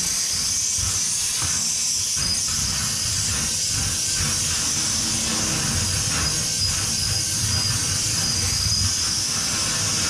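Compressed air at 100 PSI hissing steadily through a homemade air-nozzle cleaner, blowing dust out of a natural gas water heater's filter. An uneven low rumble runs beneath the hiss.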